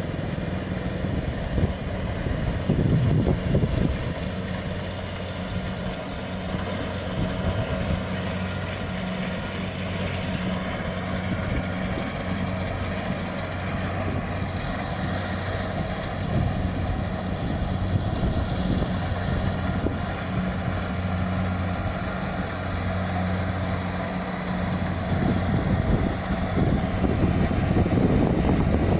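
Kubota DC-70 Plus combine harvester's diesel engine running steadily with a constant low hum and mechanical clatter.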